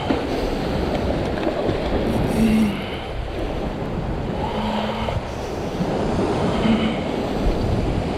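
Surf washing and breaking against a rock ledge, with wind buffeting the microphone in a steady rumble.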